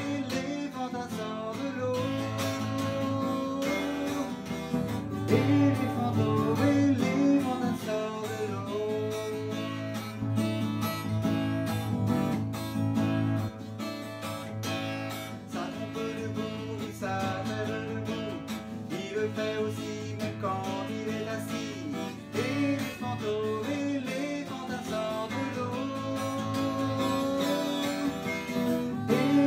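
Acoustic guitar strummed in a steady rhythm, with a man singing along.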